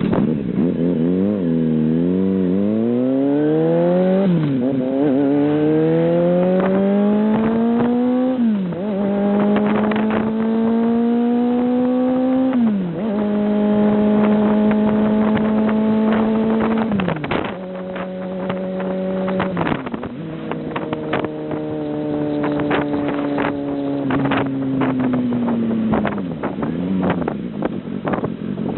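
Kawasaki Zephyr χ four-cylinder motorcycle engine heard through its exhaust silencer, accelerating and shifting up about five times, each shift a sudden drop in pitch. Then it eases off and the pitch slowly falls and levels out, with scattered sharp pops in the second half.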